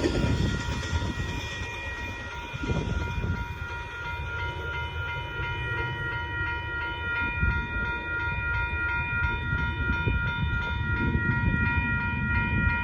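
Amtrak Texas Eagle passenger train rolling past, its wheels rumbling and clicking over the rails, while a grade-crossing bell rings steadily over it.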